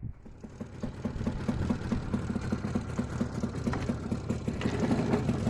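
IZh Jupiter 5's two-stroke twin-cylinder engine running with an even, rapid beat, getting a little louder near the end. The engine has the ringing and knocking that the owner takes as a sign that it needs a rebuild.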